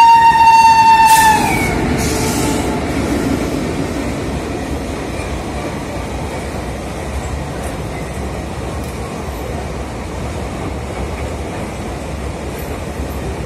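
Electric goods locomotive's horn sounding one long blast that sags in pitch and cuts off about a second and a half in. It is followed by the steady rumble and rattle of a container freight train's wagons running past at full speed.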